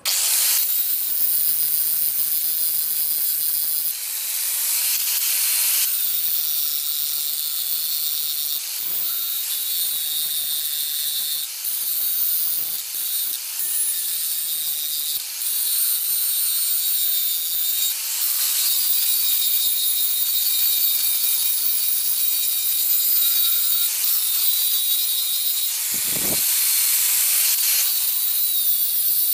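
Electric power tool abrading metal: a steady high, hissing grind with a motor tone underneath that sags and recovers as the tool is pressed in. The metal is most likely the head of an old, very rusty axe being stripped.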